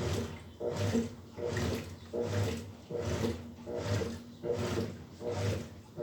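GE In•telligence 10 kg washing machine agitating a load on its comforter program at a low water level: rhythmic swishes of water with a motor hum in each stroke, a little more than one stroke a second.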